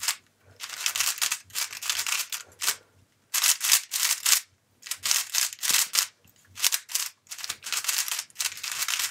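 Black MoYu AoLong V1 3x3 speedcube being turned fast by hand: bursts of quick clicking, scratchy plastic layer turns, broken by short pauses, the longest about six seconds in.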